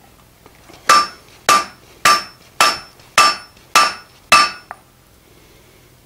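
A hand hammer strikes red-hot steel held in tongs on an anvil, forging out a hardy blank. It lands seven even blows about 0.6 s apart, each with a short bright ring from the anvil, and stops about four and a half seconds in.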